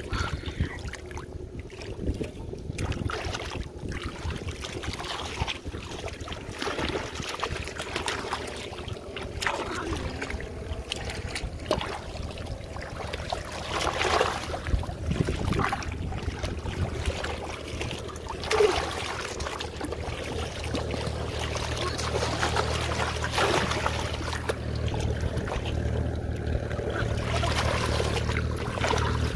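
Hands and body splashing and sloshing through shallow muddy water while grabbing at fish among the weeds, in irregular bursts that are loudest near the middle. A low wind rumble on the microphone joins in the second half.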